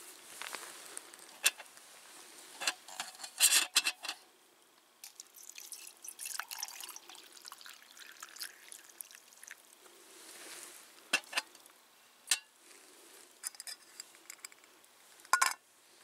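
Metal camp cookware clinking and knocking, loudest in a cluster a few seconds in, then hot water poured from a pot into an enamel mug, with more clinks near the end as the pot lid comes off.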